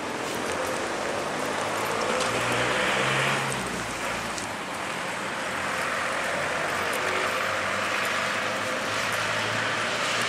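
Road traffic hum: a steady noise of tyres and engines that swells as cars pass, once about three seconds in and again near the end.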